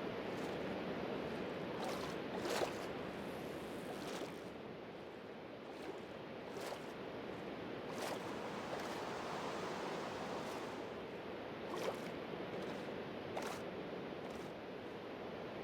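Steady rain falling, a continuous hiss with scattered sharper drop hits every second or two.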